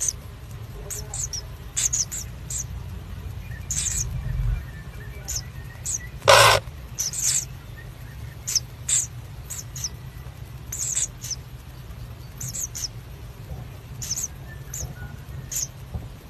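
Common kingfisher chicks in the nest burrow giving short, high-pitched squeaks, irregularly, about one or two a second. One louder harsh hiss about six seconds in, over a steady low hum.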